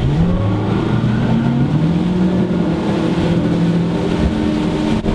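Twin 300 hp V8 outboard engines opened up to full throttle as the boat accelerates hard. Their note rises in pitch over the first couple of seconds, then holds at high revs.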